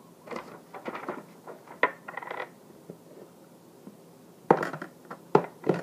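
Plastic kitchen containers and a measuring cup being handled, clinking and knocking, with a lid taken off a plastic storage container. Light clatter comes early, then sharper clacks about four and a half seconds in and twice near the end.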